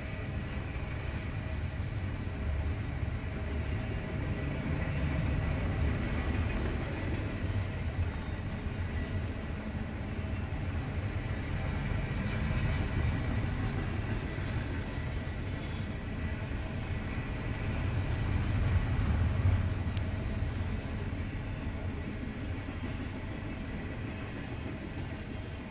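Intermodal freight train cars rolling past on the rails, a steady low rumble of wheels on track that swells and eases as the cars go by.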